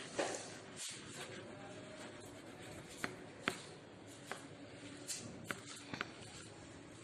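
Writing: short scratching strokes and taps of a pen or marker, spread irregularly over quiet room tone.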